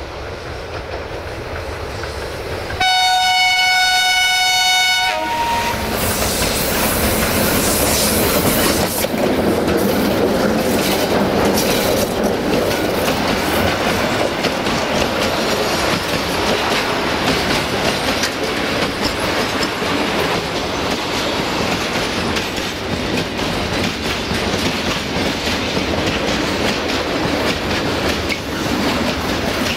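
Horn of a CFR 060-DA (LDE2100) diesel-electric locomotive sounded once for about two seconds, about three seconds in. After it comes the steady rumble and clatter of a long freight train rolling past.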